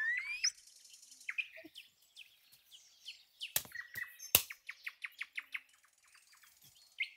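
A rising whistle glide ends about half a second in, then small birds chirp faintly and repeatedly, with two sharp clicks around the middle.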